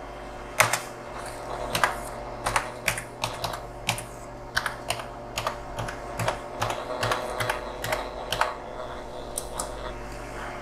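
Computer keyboard keys clicking irregularly, one keystroke after another, as a password is typed, over a steady low hum.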